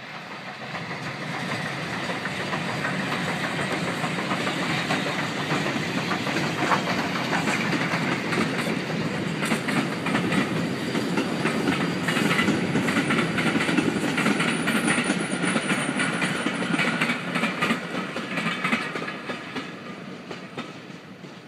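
Steam train passing: SR U class 2-6-0 locomotive No. 1638 and its coaches, the wheels clicking over rail joints. It grows louder over the first couple of seconds, is loudest in the middle and fades away near the end as the last coach goes by.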